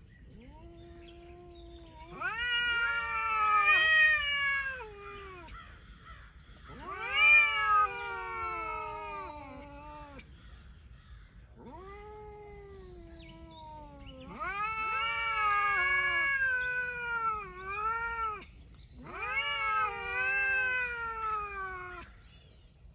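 Domestic cats yowling at each other in a standoff: about five long, wavering howls of a few seconds each, each rising and then falling in pitch. These are the drawn-out warning yowls that come before a cat fight.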